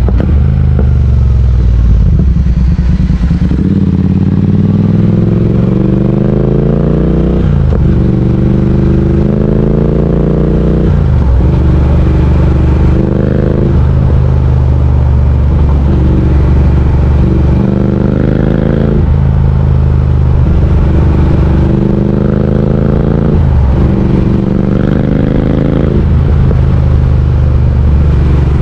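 Triumph Speed Twin 1200's parallel-twin engine, heard on board while riding, with the revs repeatedly climbing and then dropping sharply several times.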